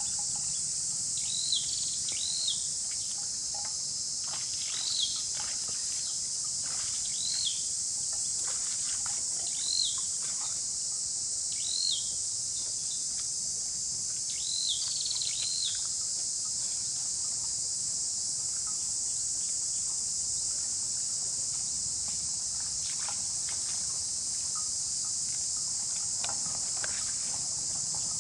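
A steady, high-pitched chorus of insects buzzing. During roughly the first half, a bird repeats a short arched call about every two seconds.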